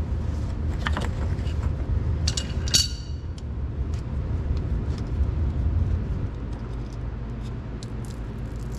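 Metal clicks and clinks of a wrench on the front differential as the 4WD actuator is cracked loose and then unscrewed by hand, with one sharp ringing clink about three seconds in and small ticks after, over a steady low hum.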